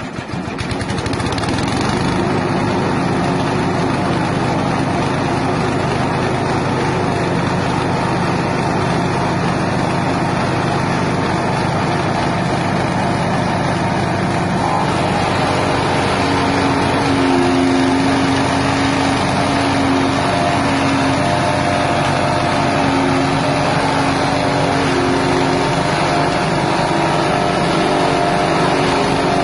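Grass chopper machine's 6.5 hp single-cylinder petrol engine running steadily, with a steady hum joining partway through.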